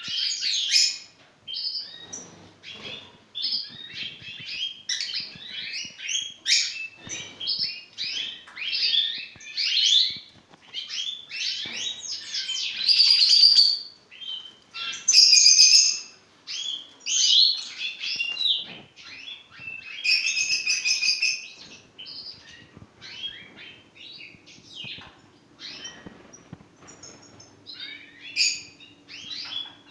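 Goldfinches of the large 'major' race (Carduelis carduelis major) singing in a cage: a continuous run of fast twittering, chirps and trills, with several louder passages through the middle.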